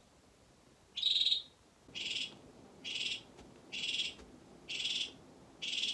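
Hyperolius reed frogs calling at night: a loud, buzzy call repeated about once a second, six in a row, each about half a second long.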